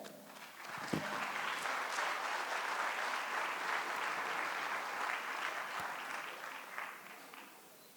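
Audience applauding, building over the first second, holding steady, then dying away in the last second or two.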